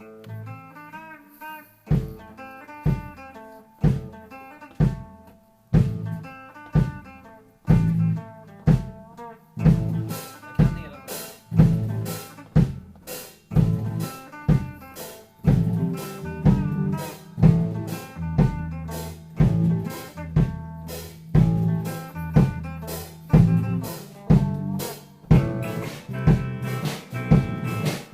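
Amateur rock band playing together: electric and acoustic guitars, bass guitar and drum kit. A guitar plays alone at first, the drums come in about two seconds in with hits about once a second, and the band fills out around ten seconds in.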